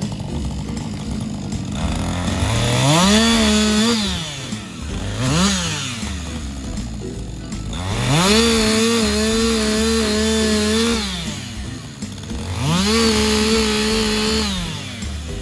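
Stihl chainsaw revved up to full speed and held for one to three seconds, then dropped back to idle, three times, with one short blip of the throttle between the first two.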